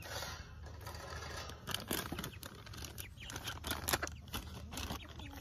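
Hen pecking feed from a plastic trough: a string of irregular sharp taps and clicks.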